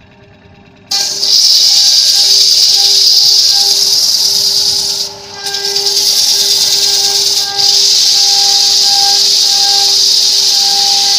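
A turning tool cutting and scraping the face of a wood disc spinning on a lathe: a loud steady hiss that starts about a second in, with a steady hum beneath it. The hiss drops out briefly twice.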